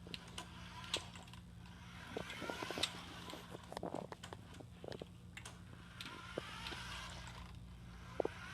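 Toy remote-control car's small electric motor whirring in short runs with a rising whine, about two seconds in and again from about six seconds, among scattered clicks and knocks.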